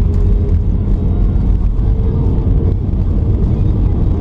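Jet airliner's landing roll heard from inside the cabin: a loud, steady, deep rumble of the engines and the wheels running on the runway as the plane decelerates with its spoilers raised.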